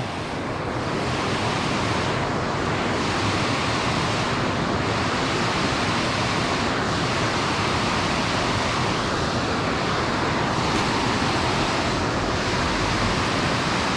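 Water rushing steadily over a small concrete dam spillway.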